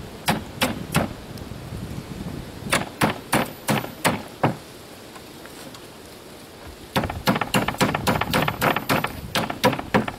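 Sharp metal-on-metal taps of a hand tool working bent staples out of a sheet of OSB. Three taps, then a group of about six, a short pause, and a fast run of taps near the end.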